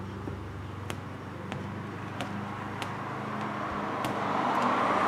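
A steady low hum with light clicks about every two-thirds of a second, and a vehicle going by, its rush of noise swelling near the end.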